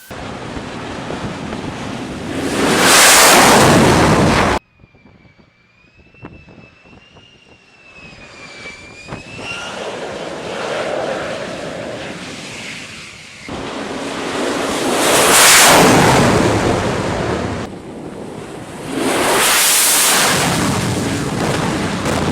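F-35A Lightning II jet making loud passes, its single afterburning turbofan swelling up to a peak and falling away three times, with abrupt cuts between passes. A quieter stretch a few seconds in carries a wavering high whine.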